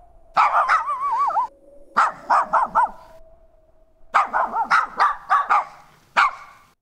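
A small Coton de Tulear dog barking in quick runs: a burst of barks with a wavering yelp, a run of four barks, a longer rapid run, and a last single bark near the end.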